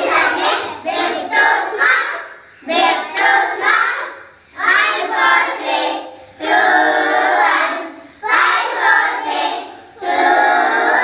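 A group of children singing an action song together in unison, phrase by phrase, with short breaks between the lines.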